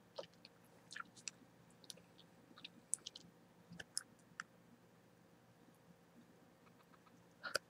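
Close-miked chewing-gum mouth sounds: scattered short, wet clicks and smacks of gum and lips in the first few seconds, then near quiet while a bubble is blown. Near the end comes a louder cluster of snaps as the bubble bursts.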